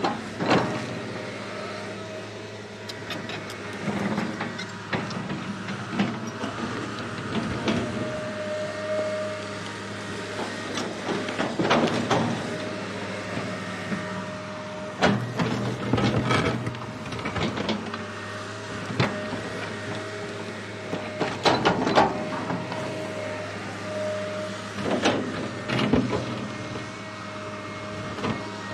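Small electric motors and plastic gears of a toy excavator whirring steadily as the arm and bucket move, with a held whine that stops and starts. Every few seconds the bucket scrapes and crunches through coarse sand, giving short louder rasps and knocks.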